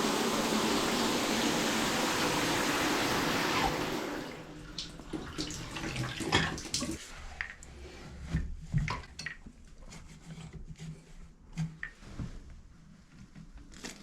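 Water running steadily from a shower fed by a Moen valve with a freshly replaced cartridge, shut off about four seconds in. Scattered light clicks and knocks follow.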